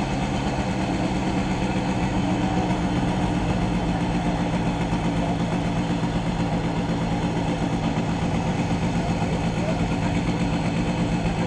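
Vehicle engine idling steadily while stopped at a traffic light.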